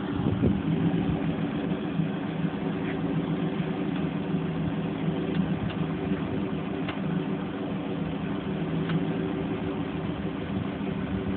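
A 2000 Pontiac Trans Am's 5.7-litre LS1 V8 running at low, steady revs as the car rolls slowly along, with a deep, even burble.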